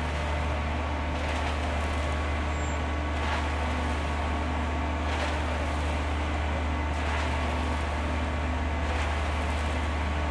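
Dubbed-in truck sound effect for a concrete mixer truck: an engine running steadily with a low rumble, and a soft swish repeating about every two seconds.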